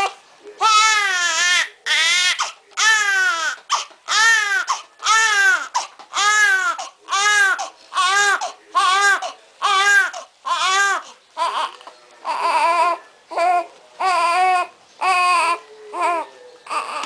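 Baby crying in a steady run of separate wails, about one a second, each rising and then falling in pitch.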